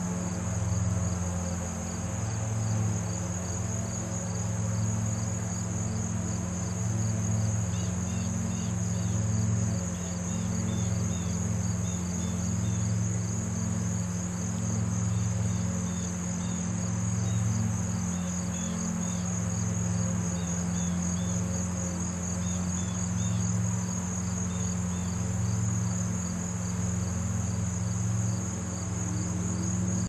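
Crickets trilling steadily in a high, rapid pulse, with short, fainter chirps joining about eight seconds in. Underneath runs a steady low hum.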